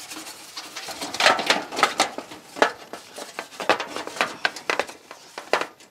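Dustpan brush scrubbing across a dryer's sheet-metal rear panel and its vent slots in quick, irregular strokes, sweeping off dust and hair.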